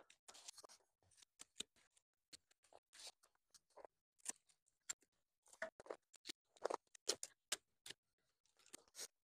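Hand pruning clippers snipping through bleeding heart stems near the root crown: an irregular run of short, sharp snips, two or three a second, a little louder in the second half.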